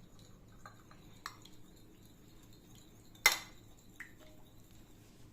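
Kitchen utensils clinking against dishware: a few light taps and one sharp clink a little past halfway, with a brief faint ring after a later tap.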